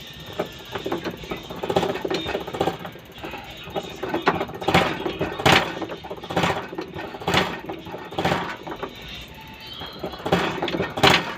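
Repeated sharp mechanical clicks from hand work on the 4HL1 diesel injector, the loudest about one a second, with lighter clicking in between.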